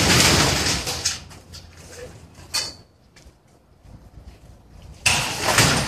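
Corrugated sheet-metal roofing rattling and scraping as it is dragged up over a tubular hoop frame: a loud clattering rush for about a second, a brief sharp noise midway, then a loud rush again near the end.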